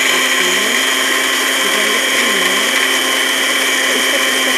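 Countertop blender running steadily at full speed, grinding chocolate cookies into crumbs.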